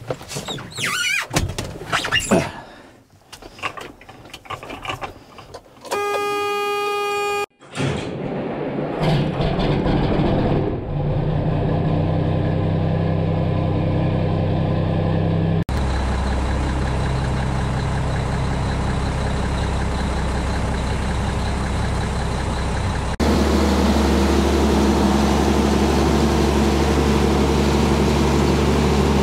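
Mack truck's diesel engine being started: a few knocks, then a short horn-like tone lasting about a second and a half, then the engine cranks and catches about eight seconds in and settles into a steady idle.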